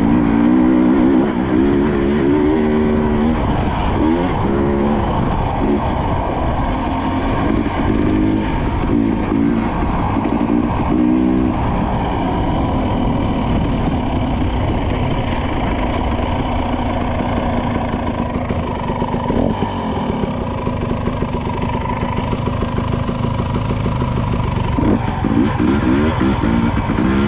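Husqvarna TE300i two-stroke single-cylinder dirt bike engine being ridden on a trail, revving up and down repeatedly, running steadier through the middle and revving again near the end.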